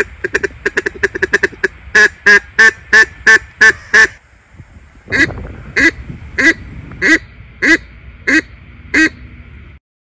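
Duck call blown close by: a quick run of short quacking notes, then seven loud quacks about three a second, a short pause, and six more quacks spaced a little over half a second apart. It cuts off suddenly near the end.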